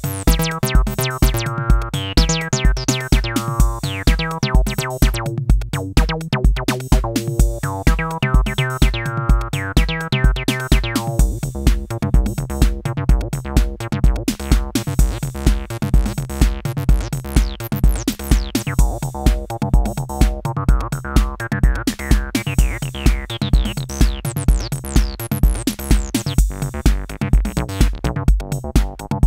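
Cyclone Analogic TT-303 analog bass-line synthesizer playing a sequenced acid bass pattern over a drum-machine beat with a steady kick about twice a second. The pattern changes partway through, then the filter opens up so the line grows steadily brighter and more squelchy.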